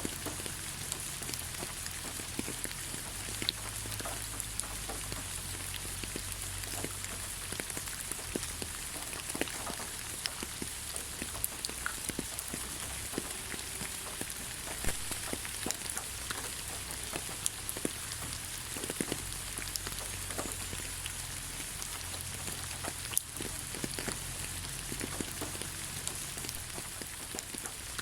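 Steady rain falling on the ground, an even hiss dotted with many individual drop impacts.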